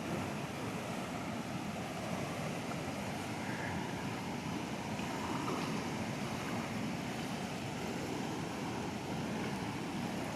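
Steady rushing of a swollen, fast-flowing river in flood after heavy rain.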